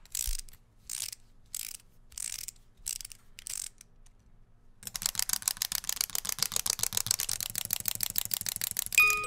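A string of short noisy swishes about every two-thirds of a second, then, after a brief pause, a film projector starts running about five seconds in with a rapid, even mechanical clatter.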